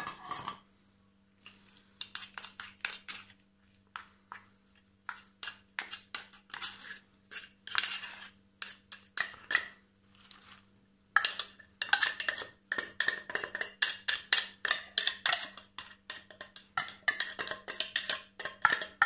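Metal cutlery scraping and clinking against the inside of an opened tin of tuna as the fish is dug out. The scrapes come scattered at first, then in a fast, busy run from about halfway.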